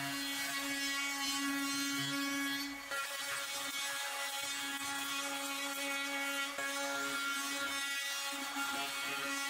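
Makita cordless compact router running at a steady high whine as its round-over bit cuts along the edge of a wooden 4x4.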